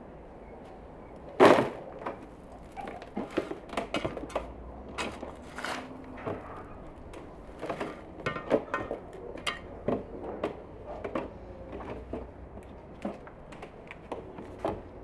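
A hand trowel scooping and scraping soil, with soil and a potted plant knocking into a plastic planter box: a run of irregular scrapes and knocks, the loudest a sharp knock about a second and a half in.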